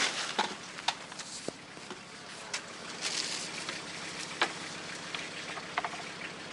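Junk being unloaded from a car and dropped onto a rubbish pile: scattered knocks and clatters at irregular intervals, a couple with a brief ringing clink.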